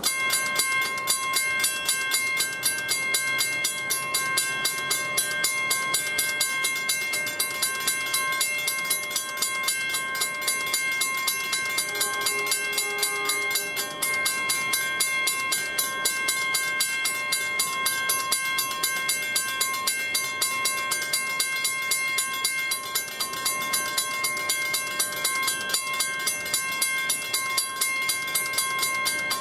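Grade-crossing warning bell ringing in rapid, even strikes, switched on as an NJ Transit Arrow III electric train approaches the crossing. About twelve seconds in, the train sounds a short horn blast lasting about two seconds.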